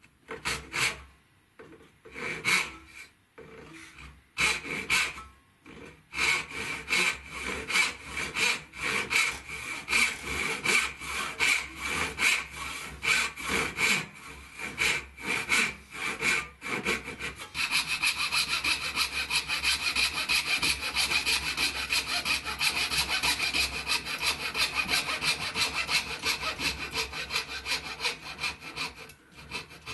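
Walnut being hand-sawn with a backsaw to cut dovetail pins, in stop-start strokes at first and then steady back-and-forth strokes. About two-thirds through, the rasping turns faster and brighter as a fine fret-saw blade clears the waste between the pins.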